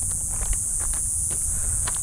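Footsteps crunching on loose gravel and rocky ground among dry brush: a few uneven steps, with low wind rumble on the microphone.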